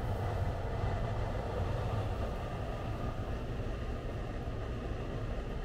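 Steady low rumble of city street background noise, with a faint even hum over it.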